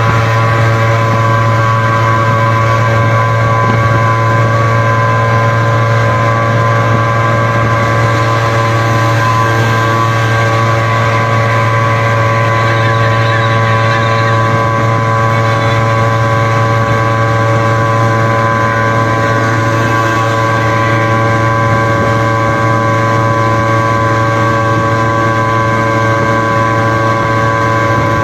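Suzuki two-stroke pickup engines running flat out at steady high revs, a loud engine note that holds one pitch without rising or falling.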